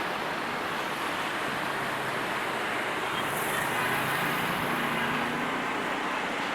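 Passenger train running on the track: a steady rolling rumble and rail noise from the coaches, with a faint low engine hum in the middle.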